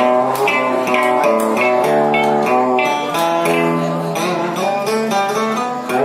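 Southern Vietnamese đờn ca tài tử string ensemble playing an instrumental passage: guitar and moon lute (đàn kìm) plucking the melody with bent notes, and a bowed violin holding longer notes.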